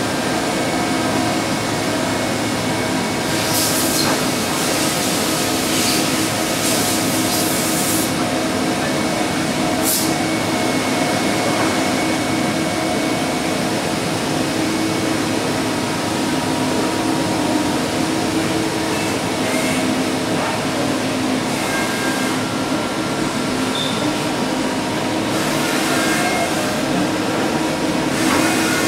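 Steady hum of running machine-shop machinery: several steady tones over a noisy drone, with short hissing bursts around four to eight seconds in and once near ten seconds.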